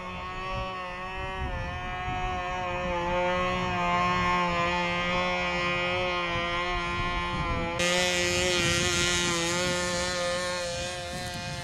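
Small KMD-2.5 model diesel engine of a model airplane in flight, running at high revs as a steady, high-pitched drone whose pitch wavers slightly, with a low rumble of wind on the microphone. About eight seconds in, a brighter hiss joins abruptly.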